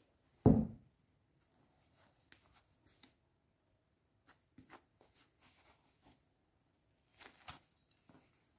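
A dull thump about half a second in, then faint crackling and rustling as a crusty homemade loaf is handled, with a short burst of crackles near the end.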